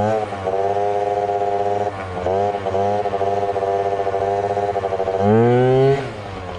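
Yamaha ZR Evo two-stroke scooter engine revving: it climbs and holds high revs, eases off about two seconds in, revs up and holds again, then surges louder about five seconds in before dropping back.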